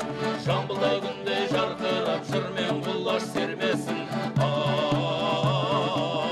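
Kazakh folk music with singing: a quick, rhythmic accompaniment for about four seconds, then a change to a held, wavering melody over sustained chords.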